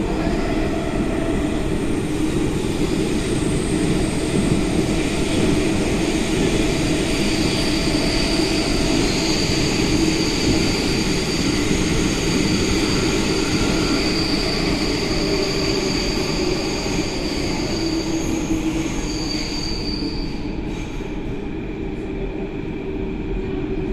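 Athens Metro Line 3 train running through a tunnel, heard from inside the carriage: a steady rumble of wheels on rail with high, thin steady tones over it that fade out about twenty seconds in, as the overall noise eases a little.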